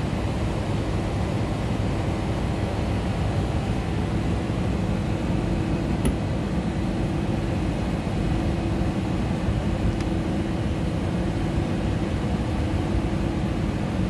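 Steady drone of running machinery with a constant low hum.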